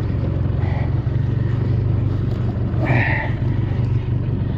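Skiff's outboard motor running steadily, with two short higher-pitched sounds about a second in and again near three seconds in.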